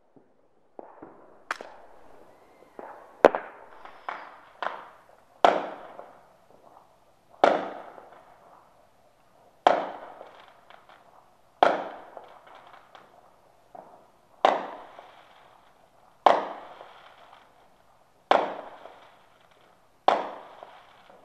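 Aerial fireworks bursting in a string of sharp bangs, each fading away over about a second. Several come close together at first, then they settle to about one every two seconds.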